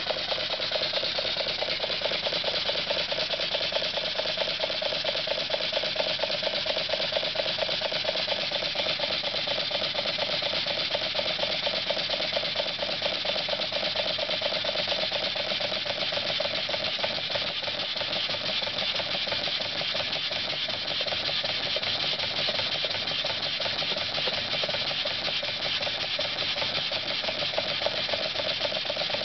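Small homemade double-acting model steam engine running fast on live steam: a rapid, steady exhaust chuff with the clatter of its valve gear and crank linkage.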